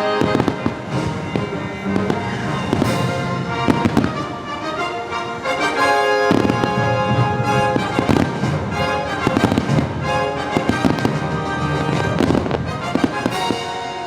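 Fireworks bursting, many bangs in quick succession, over the fireworks show's music soundtrack.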